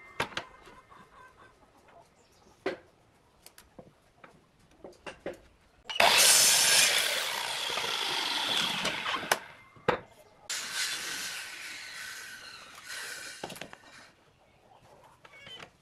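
Electric sliding compound miter saw cutting through a softwood batten. The saw starts sharply about six seconds in and runs for about four seconds, then runs again from about ten and a half seconds until it fades near the end. Light knocks of wood being set against the saw's fence come before the first cut.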